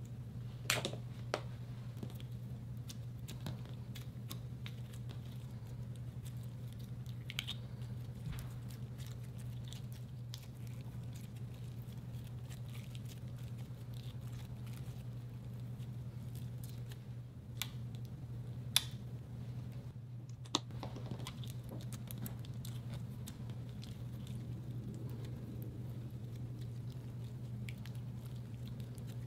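Clear slime being kneaded, stretched and folded by hand: soft sticky squishing with scattered sharp wet clicks and pops, over a steady low hum.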